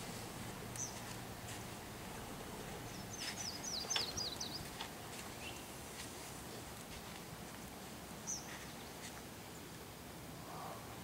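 Outdoor ambience with a small bird chirping: a quick run of high, descending chirps about three seconds in, and single chirps near the start and about eight seconds in, along with a few faint clicks.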